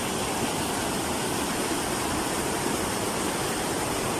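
Steady, even rush of water, a torrent of floodwater running without pause.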